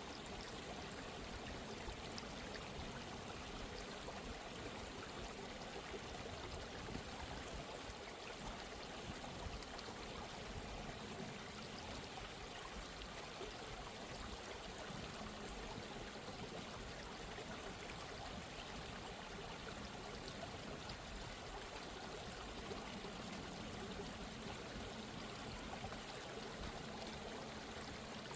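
Steady running water of a stream, an even, unbroken rush. A faint steady low tone joins about halfway through.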